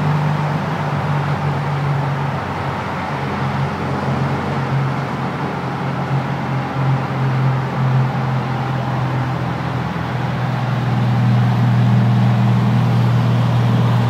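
Newly fitted 2110cc air-cooled flat-four engine of a 1961 VW Splitscreen panel van running at road speed, heard from inside the cab with road noise. About ten seconds in its note drops lower and grows louder.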